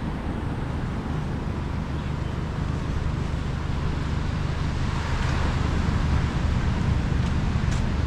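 Steady outdoor rumble of wind on the microphone mixed with surf and road traffic, growing a little louder about five seconds in.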